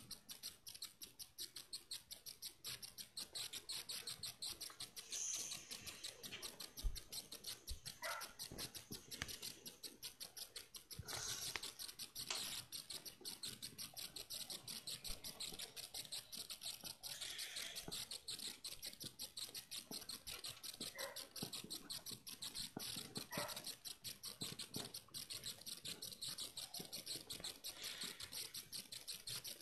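Faint, steady rapid clicking, several clicks a second, with a few rustles and one bump about seven seconds in.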